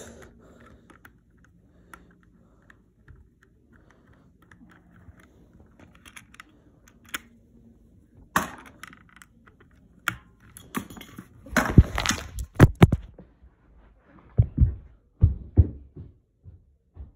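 Irregular clicks, knocks and rubbing as a phone is handled with its microphone against clothing, with a run of louder knocks in the second half.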